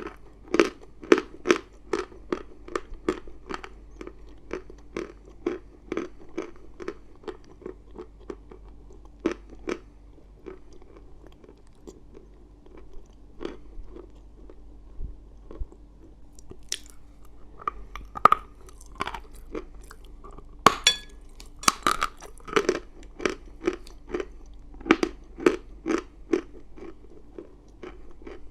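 Close-miked mouth crunching and chewing of dry chalk: sharp, brittle crunches at about two to three a second, thinning out for a few seconds in the middle, then picking up again with louder bites.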